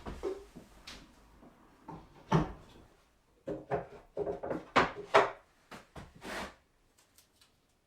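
Wooden workshop parts being handled: a series of short knocks and sliding scrapes like a drawer or panel being moved, with a quick cluster of them about halfway through.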